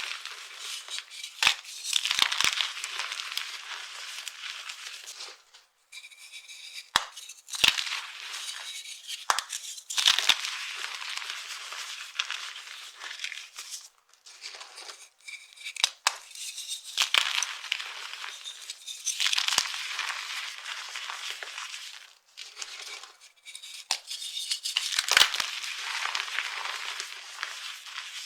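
Dry soap being crushed, crisp crunching and crackling with sharp snaps, coming in bouts of a few seconds with short pauses between them.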